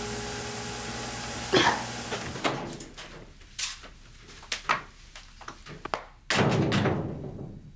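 A steady hiss cuts off about two and a half seconds in. Then a door is handled and shut, with a few sharp knocks and a louder thud near the end.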